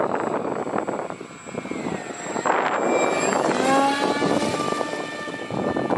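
Electric motor and propeller of an RC foam MiG-29 model jet whining as it makes a low fly-by. The pitch drops about three and a half seconds in as the plane passes, then holds steady. Rushing wind noise on the microphone fills the first half.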